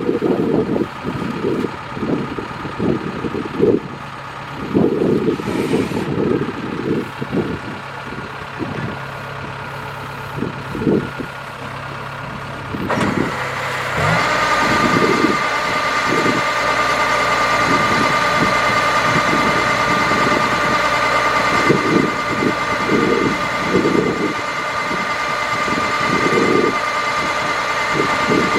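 Kubota DC-70 Plus rice combine harvester running, with uneven low rumbling throughout. About halfway through it gets louder and a steady high-pitched whine joins in and holds.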